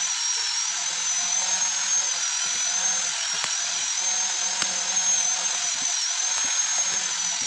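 A small electric motor whining steadily at a high pitch over a hiss, its pitch wavering slightly, with two sharp clicks near the middle.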